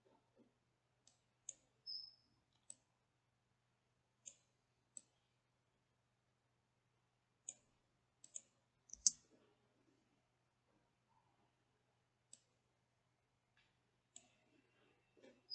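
Computer mouse clicking: a dozen or so short, sharp clicks at irregular intervals, the loudest about nine seconds in, over a faint steady low hum.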